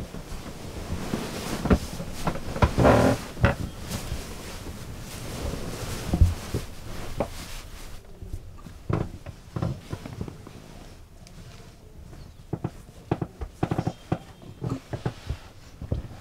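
Rustling and soft knocks of two people moving and struggling on a bed, with a few short wordless vocal sounds near the end.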